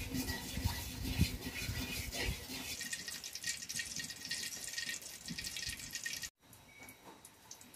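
Cooking oil crackling and spitting as it heats in an aluminium wok over a wood fire, a dense stream of tiny ticks. The noise shows the oil is not yet ready: it goes quiet once hot enough to fry. About six seconds in it cuts off suddenly to a much fainter crackle.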